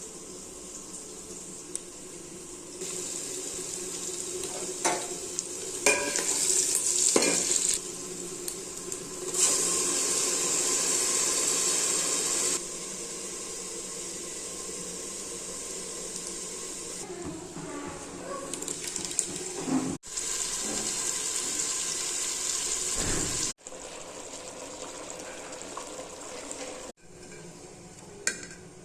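Chicken curry frying in a pan, a steady sizzle with occasional clinks and scrapes of a utensil stirring. It comes in short sections that start and stop abruptly at different loudness.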